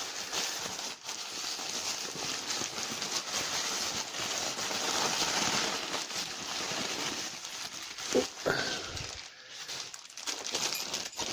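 Rustling and crinkling of packaging as a lock is unwrapped from the parcel, with a short pitched squeak about eight seconds in.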